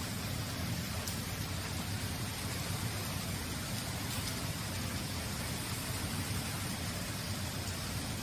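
Steady rushing background noise with a low hum underneath, even throughout, with no distinct events.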